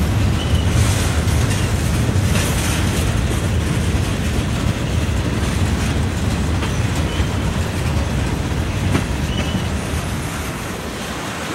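Freight train cars rolling past close by: a steady heavy rumble of steel wheels on the rails, with a few short, faint high-pitched wheel squeals. It eases off slightly near the end.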